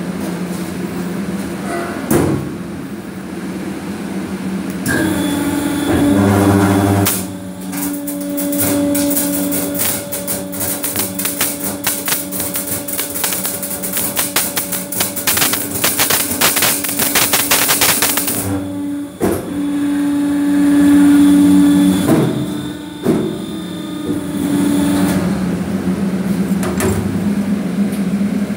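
FW-40 flash butt welding machine joining two ribbed rebar ends: a steady electrical hum, then from about seven seconds in a dense crackle of arcing flashes for about twelve seconds, which cuts off suddenly. After that the hum carries on, with a few knocks from the clamps.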